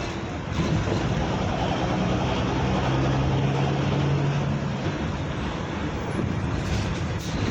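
Road traffic noise: steady engine and tyre rumble of passing vehicles, with a low engine hum that swells for a couple of seconds midway.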